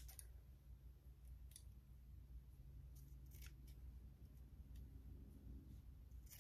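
Scissors snipping through strands of wig hair at the hairline: a few short, sharp snips spaced out, with two close together around the middle.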